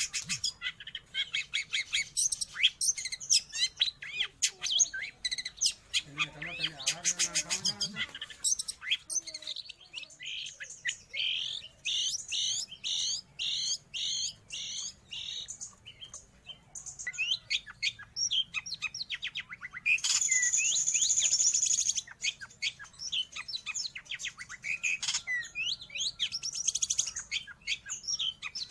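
Long-tailed shrike (cendet) singing a fast, varied song of sharp chirps and trills. About twenty seconds in there is a harsh, rasping note that lasts about two seconds.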